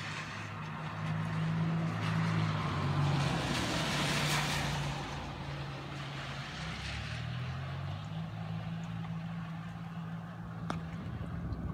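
A motor vehicle passing: a low steady hum under a rushing noise that swells to a peak about four seconds in and then fades. A single sharp click comes near the end.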